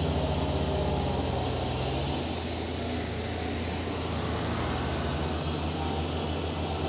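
Tractor engine running steadily as a low, pulsing drone, its pitch shifting slightly about two seconds in.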